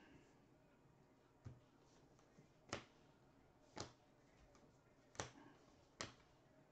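2020 Bowman baseball cards being flipped one at a time through a hand-held stack: a short, sharp snap of card stock about once a second, five in all, the first one weaker.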